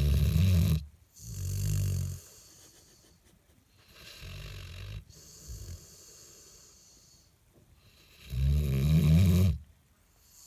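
Labrador retriever snoring: four slow, deep snoring breaths a few seconds apart. The third is softer than the others.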